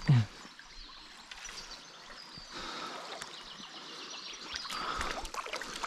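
Shallow stream water running, with light splashing growing from about halfway as a hooked trout is brought to the landing net.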